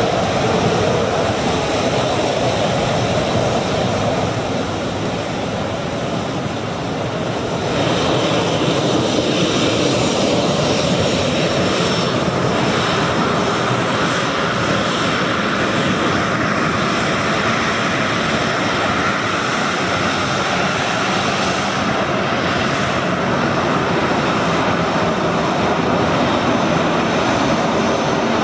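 Boeing 737-400's two CFM56-3 turbofan engines at taxi power: a steady jet whine with a rushing noise. It drops off a few seconds in and comes back louder about eight seconds in as the jet turns past.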